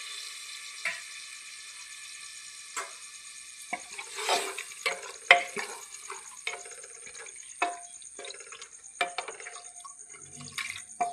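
Water poured into a pressure cooker of cauliflower curry, then a metal spoon stirring and clinking against the pot many times.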